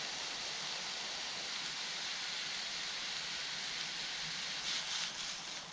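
Sliced milk cap mushrooms sizzling in a frying pan on a portable gas stove, a steady hiss, with a few soft knocks near the end.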